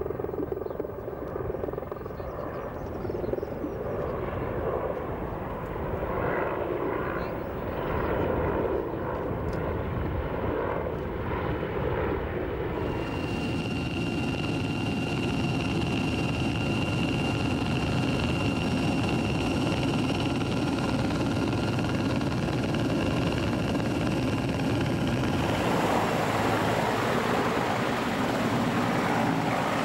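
German Army CH-53G heavy transport helicopter's rotors and turbine engines running steadily. Through the middle stretch a steady high turbine whine sits over the rotor noise, and near the end the sound turns to a broader, brighter rush.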